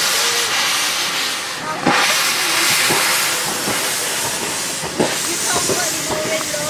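Miniature LBSCR Atlantic 4-4-2 steam locomotive moving off slowly, with a loud, steady hiss of steam from its open cylinder drain cocks. A few sharp knocks from the wheels and motion come through, the loudest about two seconds in.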